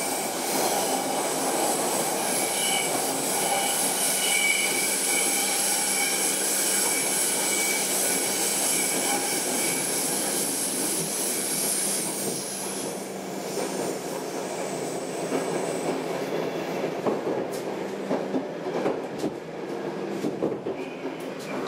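Stockholm Metro C6 subway car heard from inside the car while running, with a steady high wheel squeal and rail rumble. The squeal fades about 12 seconds in, leaving rumbling with irregular clacks and knocks over the track as the train slows into a station.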